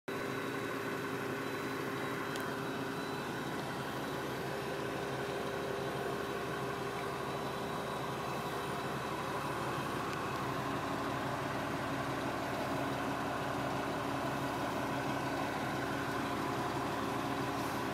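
Fire truck's diesel engine running steadily at idle: an even hum with a few held tones.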